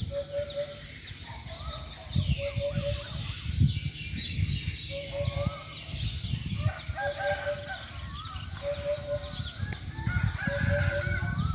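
Several birds calling together: a short, low, doubled note repeats about every second and a half, with chirps and trills above it. Low rumbles come and go underneath.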